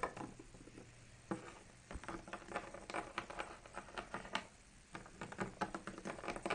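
Small plastic Littlest Pet Shop toy figures tapped along a wooden tabletop in quick runs of light taps, with a few louder knocks, as a hand hops them across the play set.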